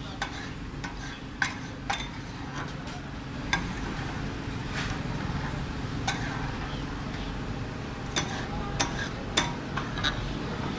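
Metal spatulas clinking and scraping against a tawa as chicken masala is stirred on it. There are sharp clinks at uneven intervals over a steady low rumble.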